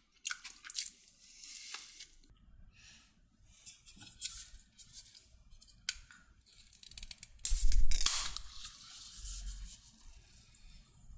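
Food takeaway packaging being handled: irregular crinkles, rustles and clicks, with a louder stretch of rustling about two-thirds of the way through.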